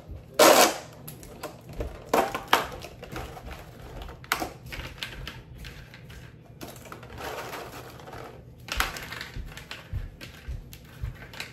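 Crinkling and rustling of a crostini cracker package being handled and opened, with scattered sharp clicks and taps; the loudest crackle comes about half a second in.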